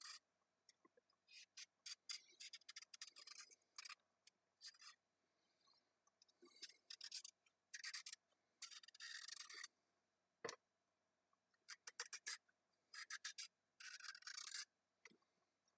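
Paring knife faintly scraping and shaving the skin off a raw carrot in short, irregular strokes, with a single light knock about two-thirds of the way through.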